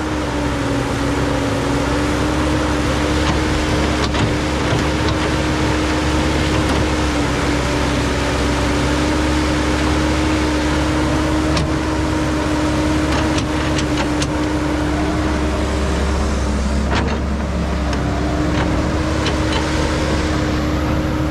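Caterpillar 312 hydraulic excavator running steadily while it digs, its diesel engine giving a constant hum with a steady pitched note. A few short sharp clicks and knocks stand out over it.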